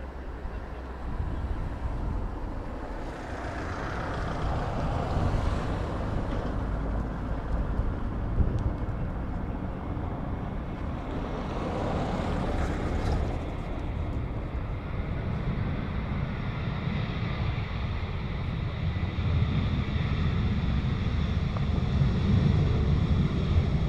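Airbus A320-family airliner's jet engines during landing: a broad jet rush that swells as the plane passes, then from about midway a steadier whine with several high tones as it rolls along the runway. Wind buffets the microphone.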